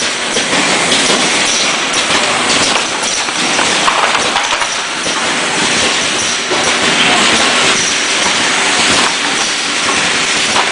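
Automatic blister-sealing and cartoning machine running: a steady, loud mechanical clatter made of many quick small clicks and rattles.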